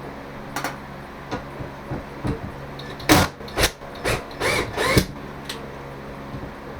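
A power drill/driver run in several short trigger bursts about halfway through, backing out a small square-head screw that holds a light fixture, with light clicks of the bit on the screw before.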